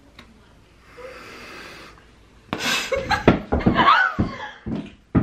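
Soft breathy blowing through the lips into bubble gum, then about two and a half seconds in a sudden outburst of laughter and excited squeals.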